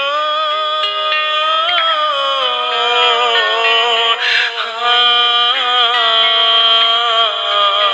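Music: a song with long, held, wavering sung notes over accompaniment.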